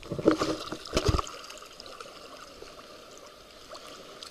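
Muffled underwater water noise picked up by a submerged camera: a few louder sloshing knocks in the first second or so, then a steady faint wash of gurgling water.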